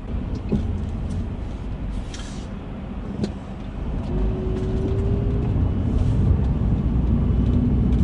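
Car engine and tyre noise heard from inside the cabin while driving, growing louder about halfway through. A brief faint whine comes in about four seconds in.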